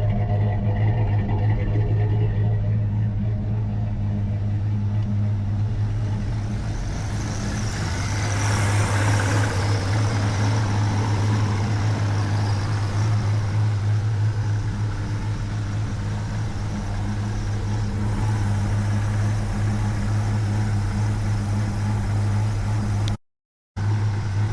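1990 Dodge Ram 150 TBI engine idling steadily, running again after a no-start problem; it is running a little off, which the owner puts down to contaminated injectors and emissions system. The sound drops out briefly near the end.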